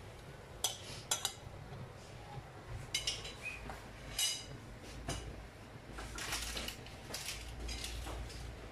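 Metal fork clinking and tapping against a bowl and a frying pan: a scattered run of sharp clinks, a few with a short ring, growing busier in the second half.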